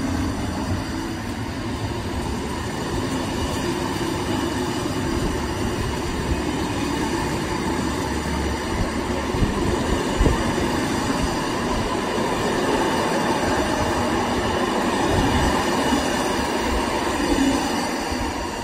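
Train of Corail passenger coaches rolling past: a steady rumble of steel wheels on the rails, with a few sharp clicks about halfway through.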